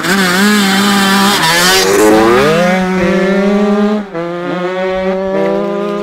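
Two 85cc two-stroke motocross bikes, a Yamaha YZ85 and a Kawasaki KX85, revving hard as they pull away together from a standing start, the pitch climbing and dropping back with each gear change. The sound gets quieter after about four seconds as they ride off.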